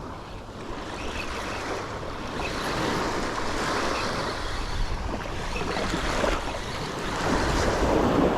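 Gulf surf breaking and washing up the beach, with wind buffeting the microphone; the wash swells louder about three seconds in and again near the end.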